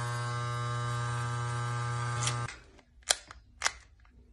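Electric hair clippers buzzing steadily against the scalp, switched off about two and a half seconds in. A couple of sharp clicks follow.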